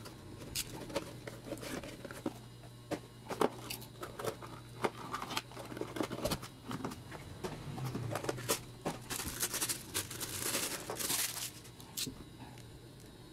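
Plastic-free cardboard action-figure packaging being opened by hand: scattered clicks and scrapes as the box and inner cardboard tray are handled, with a stretch of tearing and rustling between about nine and eleven and a half seconds in.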